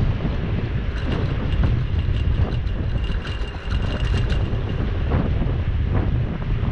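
Wind buffeting the microphone of a camera on a bicycle coasting downhill, over a low rumble of tyres on the road, with scattered light clicks and rattles. A faint high whine runs for about a second and a half in the middle.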